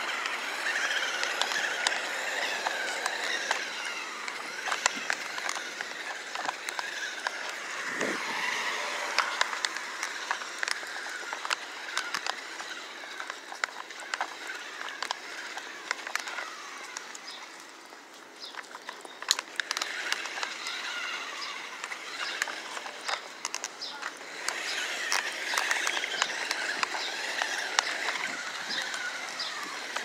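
Battery-powered toy RC side-by-side driving on pavement: its electric motor and gears whine, rising and falling in pitch as it speeds up and slows, while its tyres click and rattle over the ground. The sound drops away briefly about eighteen seconds in.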